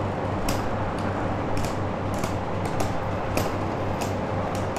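Two Beyblade Burst spinning tops, Guilty Luinor and an opponent, whirring in a plastic stadium, with irregular sharp clacks about twice a second as they strike.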